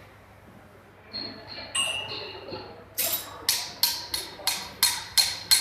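Automatic cage spot welding machine working on steel reinforcing wire. A few light metallic clicks come first, then about halfway in a quick, regular run of sharp metallic clanks, roughly three a second, each ringing briefly.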